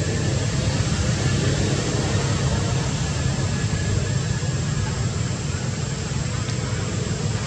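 Steady rumbling background noise with no distinct events, even in level throughout.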